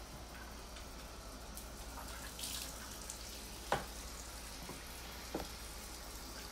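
Bathroom sink tap running steadily while face and hands are washed under it, with a few brief splashes.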